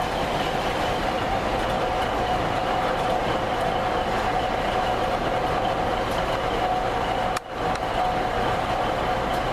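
CrossCountry Class 170 Turbostar diesel multiple unit pulling out, its underfloor diesel engines running steadily under power with a constant whine over the engine and wheel noise.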